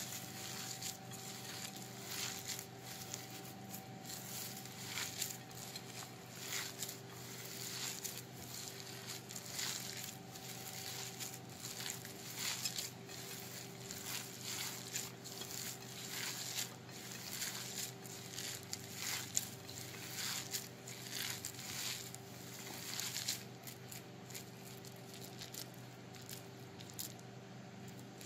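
A hand squeezing and mixing coarse, wet ground chana dal batter with chopped onions in a glass bowl: irregular soft squishing and crunching.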